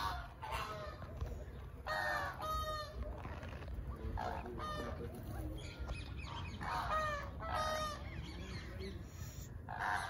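Birds calling: about four bouts of short, harsh, pitched calls, a few calls each, a couple of seconds apart.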